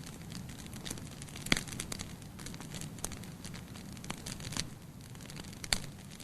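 Bonfire crackling: irregular sharp pops of burning wood over a low steady rumble, the loudest pops about a second and a half in and near the end.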